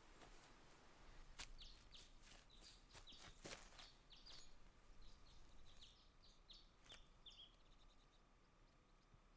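Faint forest ambience: a small bird gives a run of short, high chirps, each falling in pitch, stopping about eight seconds in. Under it come crackles of dry leaf litter, loudest in the first few seconds, as the boy scrambles over the ground and handles plants.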